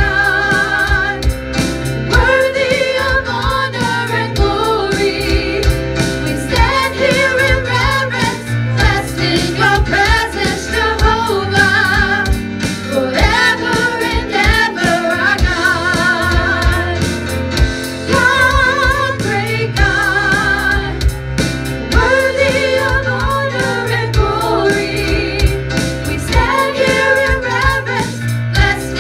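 Live gospel worship song: several women singing in harmony with vibrato over a band accompaniment with a steady beat.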